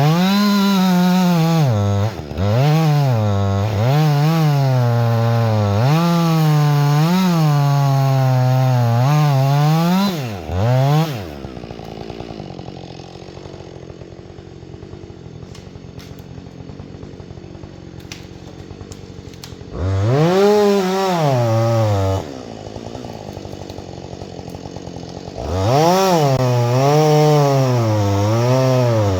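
Husqvarna 562XP two-stroke chainsaw cutting into a large white pine, its engine speed sagging and recovering under load. About eleven seconds in it drops to idle, goes back into the cut briefly around twenty seconds, idles again, and is back at full cut for the last few seconds.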